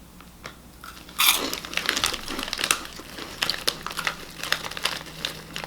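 A crunchy puffed snack being bitten and chewed: a loud crunch about a second in, then repeated crackling crunches as it is chewed.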